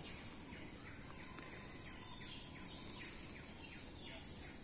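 Insects droning steadily at a high pitch, with a bird calling a quick run of short falling notes midway.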